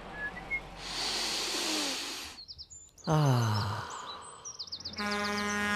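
Cartoon street sound effects: birds chirping, a vehicle passing with a whoosh, then a deep tone sliding steeply down in pitch. Near the end a steady horn-like blast runs straight into the start of a loud crash.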